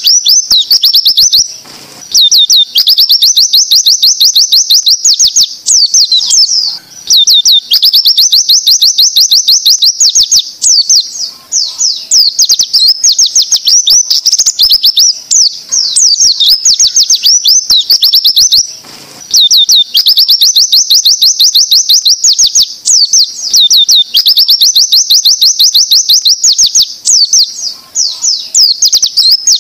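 White-eye (pleci) singing the rapid-fire 'zipper shot' (tembakan ziper) song: long strings of fast, sharp high notes broken by short pauses every few seconds. This is a tutor (masteran) recording of the kind played to train young or untrained pleci.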